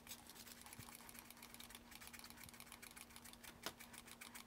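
Faint, sped-up sound of a hand spray bottle being pumped to apply scenic cement: rapid soft clicks of the trigger, over a steady low hum.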